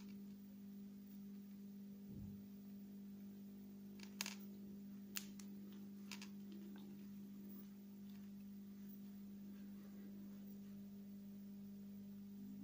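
Quiet small room with a steady low hum and three faint clicks about a second apart near the middle, from hands handling fishing line and a small quick-change swivel while tying a knot.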